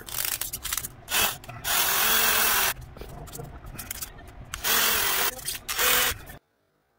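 Power drill running in several short bursts, drilling small holes in a fiberglass laminate motor mount, with quieter scraping between bursts. The sound cuts off suddenly near the end.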